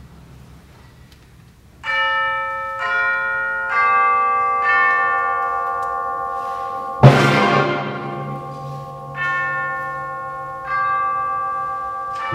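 Tubular bells struck one note at a time, about a second apart, each note left ringing so they pile up, after a quiet start. About seven seconds in comes a single loud percussion crash with a low drum note, the loudest moment, then two more bell strokes before the full band comes in at the very end.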